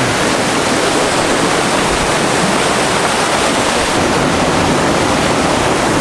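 Waterfall pouring close by: a loud, steady rush of falling water with no let-up.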